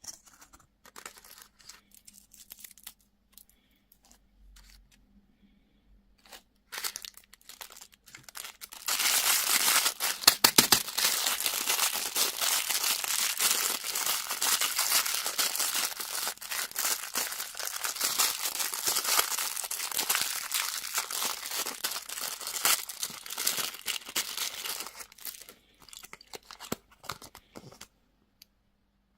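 Candy wrapper being crinkled and torn open. Light rustling and scattered crackles give way, about nine seconds in, to a long stretch of loud, continuous crinkling and tearing, which thins out to occasional rustles near the end.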